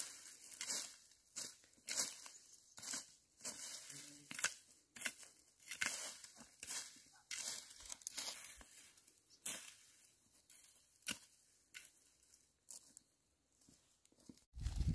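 Dry grass and brushwood rustling and crackling as they are raked and pulled with a hand tool, in quick irregular strokes that thin out and grow fainter after about eight seconds.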